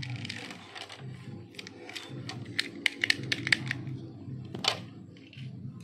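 Hard plastic toy parts clicking and snapping as they are handled and fitted together: a run of sharp clicks, thickest about two to four seconds in, with one louder snap near the end.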